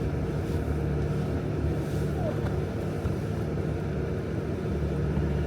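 Jeep Gladiator's 3.0-litre EcoDiesel V6 running steadily at low revs, a continuous low engine drone.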